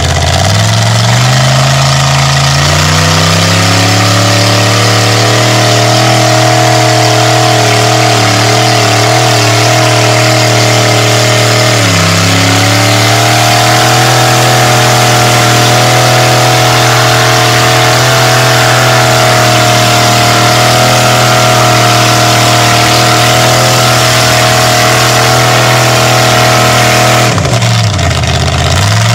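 Mud buggy engine held at high revs with its wheels spinning, throwing mud while the buggy sits buried to the frame in a deep mud hole. The revs climb at the start, dip and climb again about twelve seconds in, and drop near the end.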